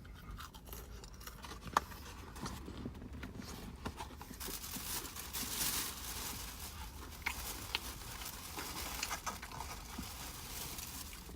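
Quiet mouth sounds of chewing crispy fried popcorn chicken: scattered soft clicks and smacks, with a couple of seconds of soft hissing noise near the middle.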